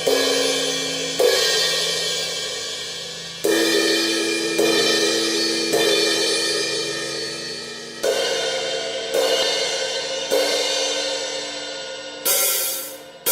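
Crash cymbals (Paiste and Zildjian S crashes) struck one at a time, about eight hits a second or two apart. Each hit is left to ring and fade, with a different pitch from one hit to the next. Near the end the hits die away quickly.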